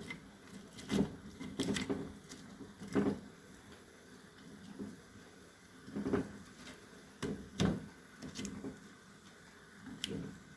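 Dried figs being dropped by hand into a pot of boiling water with garlic: irregular soft knocks and thuds, about nine spread over ten seconds.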